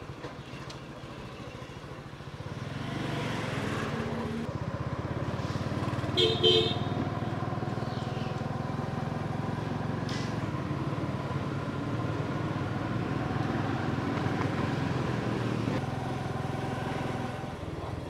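Honda motorcycle engine running as the bike rides along, getting louder about two seconds in as it picks up speed. A vehicle horn toots twice, briefly, about six seconds in.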